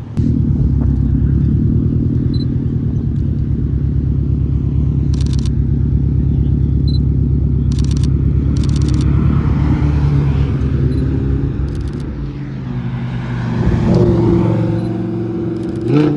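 Car engine running with a steady, loud low rumble; its pitch shifts and rises in the last few seconds.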